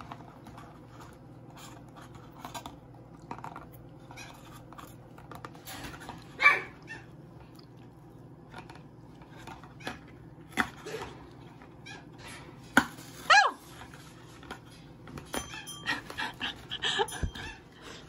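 Hyacinth macaw's beak clicking and scraping on the lid of a plastic peanut jar as it tries to open it, with a couple of short calls from the bird, about six seconds in and again about thirteen seconds in.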